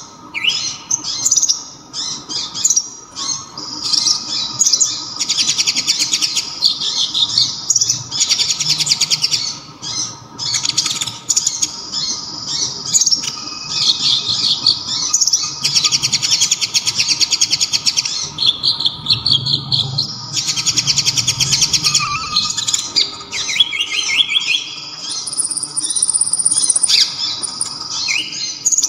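Kolibri ninja (konin) sunbird singing a loud, high-pitched song of quick chirps and very fast rattling trills, in runs of a few seconds separated by short pauses.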